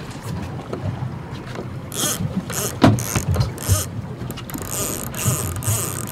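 Boat under way at trolling speed: low rumble of the twin 250 hp outboards mixed with wind, with several short bursts of hiss in the second half and a sharp knock just before the middle.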